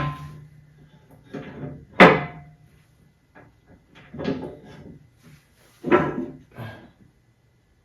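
A few separate knocks and clunks of hard parts being handled and fitted, the sharpest about two seconds in, some ringing briefly.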